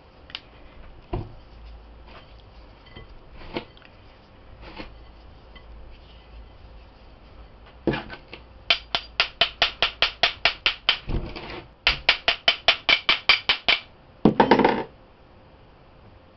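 Rapid metallic tapping on a round metal bath bomb mold, in two quick runs of about six or seven taps a second, after a few scattered knocks; the taps loosen the packed fizzy mixture from the mold. Near the end comes a short, loud scrape.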